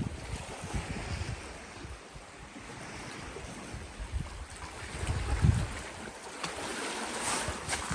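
Gusty wind buffeting the microphone over a steady wash of sea waves, with a few sharp ticks near the end.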